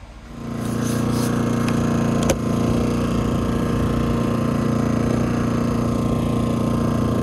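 Portable generator engine running steadily at close range, with a single sharp knock about two seconds in.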